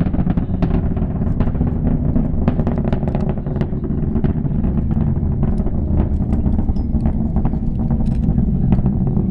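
Space shuttle Atlantis's solid rocket boosters and main engines during ascent: a loud, deep, continuous rumble shot through with sharp, irregular crackles.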